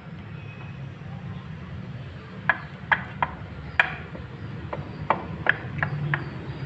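About nine sharp knocks and taps on hard material, unevenly spaced, starting about two and a half seconds in, over a steady low hum. They fit the freshly dried glue work on an intake manifold being tapped and worked loose to open it.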